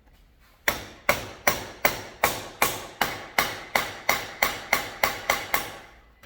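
Hammer tapping metal about fourteen times in a steady run, roughly three strikes a second, each with a short metallic ring: trying to tap the broken inner drive shaft out of a Stihl string trimmer.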